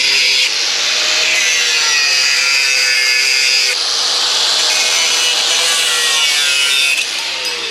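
A power tool working on metal exhaust pipe: a steady high-pitched whine with a rasping hiss. It eases slightly about four seconds in and drops away near the end.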